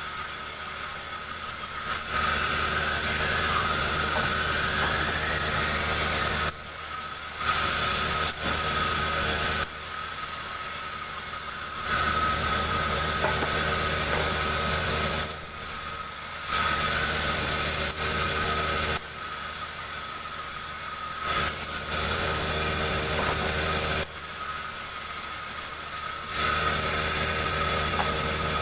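An engine running steadily on the wood-splitting machine, its sound switching between louder stretches and quieter ones every few seconds.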